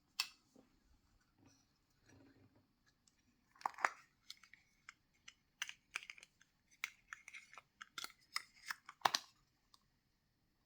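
Packaging of a surprise box being handled and opened: a sharp click just after the start, then a quick run of crinkles, crackles and clicks from about a third of the way in until near the end.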